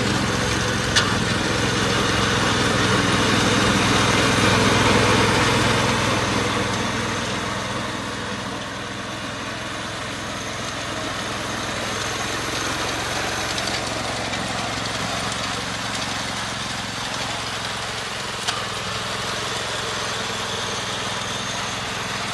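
Hyundai two-wheel mini tractor's 7 hp four-stroke engine running steadily under load as its reaper cuts standing wheat. It is louder for the first several seconds, then settles a little lower, with two brief clicks.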